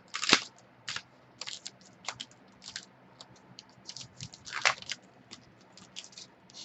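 Trading cards being handled: irregular light clicks and short rustles as cards are flipped and slid against each other, with one louder swish after about four and a half seconds.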